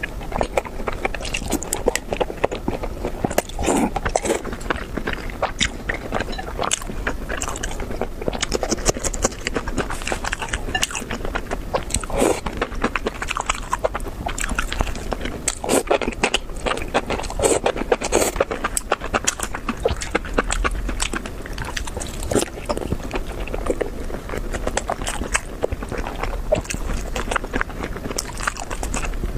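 Close-miked eating: wet, sticky chewing and biting of braised pork skin and enoki mushrooms in chili oil, a continuous run of mouth clicks and smacks.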